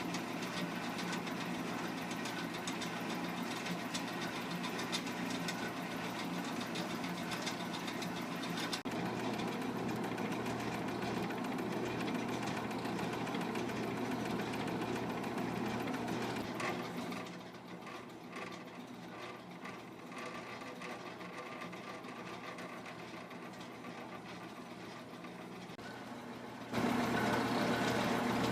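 Converted Sears 12-inch band saw running on its slowed compound-pulley drive with cog V-belts: a steady mechanical hum from the motor and belts. It gets quieter past the middle, then suddenly louder again near the end.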